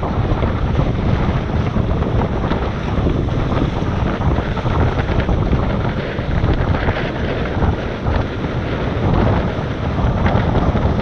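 Wind buffeting the microphone over the rush of water past the hulls of a Tornado racing catamaran sailing upwind with one hull lifted. The noise is loud and steady, swelling and easing a little.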